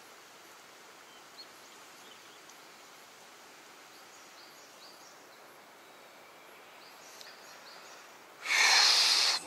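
Quiet outdoor background with a few faint, short bird chirps. Near the end comes a loud rustling hiss lasting about a second.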